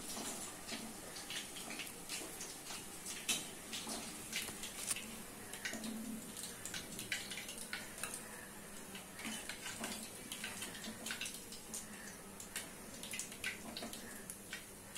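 Hot oil sizzling in a kadai as batter-fried chicken 65 pieces are lifted out with a slotted spoon, with many small sharp crackles and pops scattered throughout.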